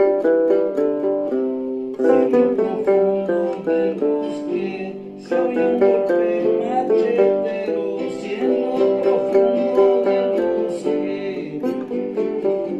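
Plucked string instrument, guitar-like, playing a quick melody of many short picked notes, with brief breaks about two and five seconds in.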